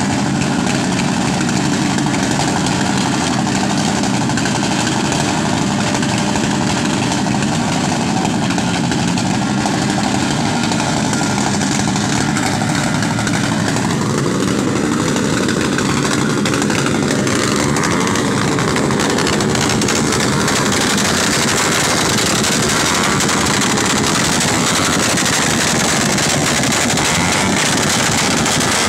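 Motorcycle engines held at high revs in an engine-revving contest, loud and continuous, with the pitch rising about halfway through.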